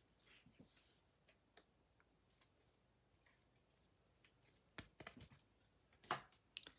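Near silence, with a few faint clicks and rustles of baseball cards being handled, clearest in the second half.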